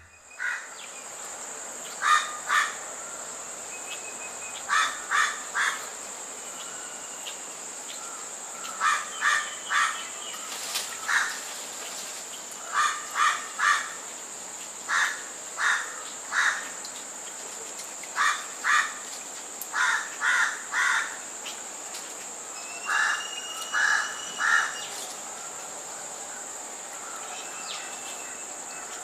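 Loud, harsh cawing calls, repeated in quick bursts of two to four every second or two, over a steady high insect drone such as cicadas; a few thin whistled bird notes come in between, most clearly about 23 seconds in.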